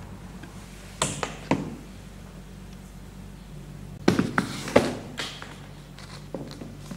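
A briefcase is set down on a table with a heavy thud about four seconds in, followed by several knocks and clicks as it is handled. There are two sharp knocks earlier, about a second in, over a steady low hum.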